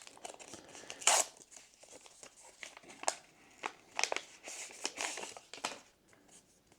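A card booster pack's wrapper being torn open and crinkled in the hands: a run of irregular crackling rustles, the sharpest about a second in.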